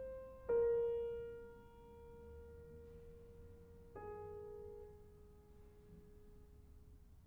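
Steinway concert grand piano playing slow, sparse single notes: a strong note about half a second in rings and fades, then a softer note about four seconds in is left to die away.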